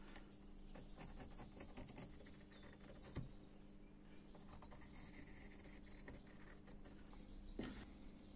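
Faint scratching of a pencil drawing a line on a block of sweet chestnut wood, with scattered light ticks and a sharper click about three seconds in, over a faint steady hum.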